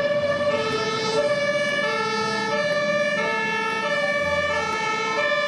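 Emergency-vehicle siren sounding in a steady two-tone hi-lo pattern, switching between a higher and a lower note about every half second.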